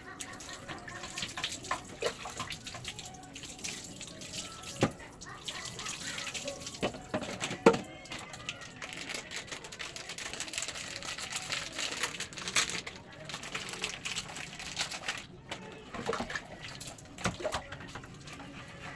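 Water splashing and pouring over a dog being washed by hand from a drum and dipper, with a few sharp knocks, the loudest about eight seconds in.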